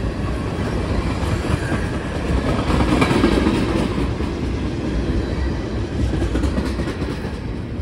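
Freight train of tank cars rolling past close by, its steel wheels clattering steadily on the rails.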